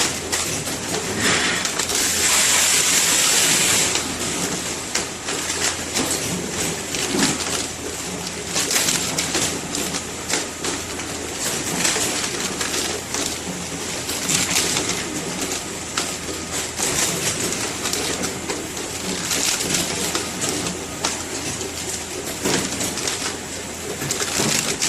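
Seasoned laver flake weighing machine running: a steady hum with many small clicks and rattles, and a louder hiss from about one and a half to four seconds in.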